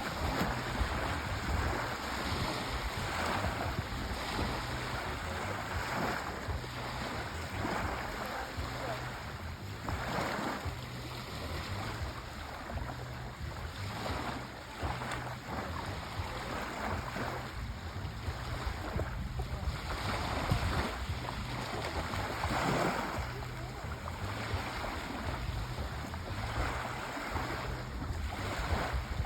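Sea waves washing ashore, a continuous rushing with swells every second or two over a low rumble, and some wind on the microphone.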